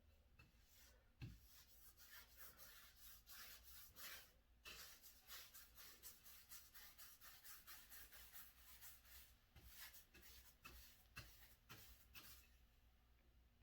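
Paintbrush being stroked back and forth across a wall: a quick run of faint, scratchy swishes, about two or three a second, with a few soft knocks, stopping near the end.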